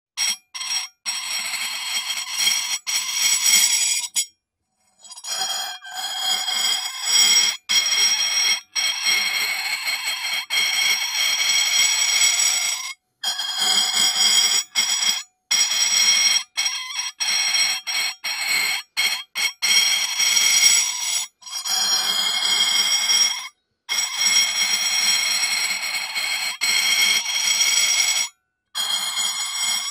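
Porcelain dishes rubbed together, squeaking in long shrill squeals with a slightly wavering pitch. The squeals come in runs broken by short silent pauses.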